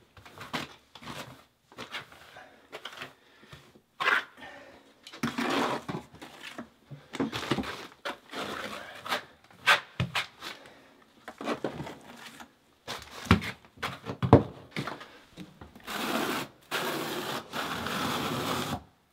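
Notched trowel scraping and swishing through wet modified thin-set on a subfloor, in irregular strokes with some sharp scrapes. Near the end comes one longer, steady stroke as the notches comb ridges into the mortar.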